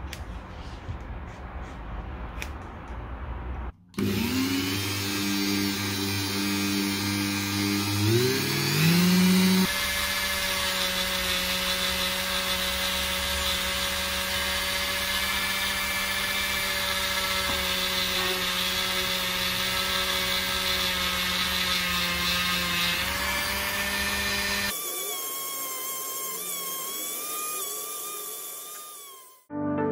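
Dremel rotary tool with a small abrasive wheel, grinding the blue patina off a brass plaque's raised relief down to bare metal. The tool first gives a few seconds of quieter handling clicks as the bit is fitted in the collet. It then runs with a steady whine whose pitch rises once before settling.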